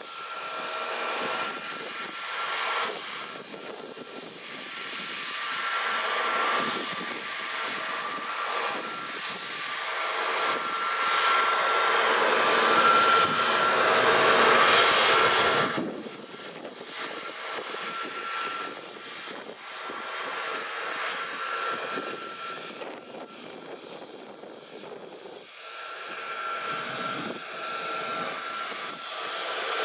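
Airbus A320neo's Pratt & Whitney PW1100G geared turbofans running at ground idle, a steady rushing sound with a thin high whine. It swells louder toward the middle and drops abruptly a little past halfway, then carries on more quietly.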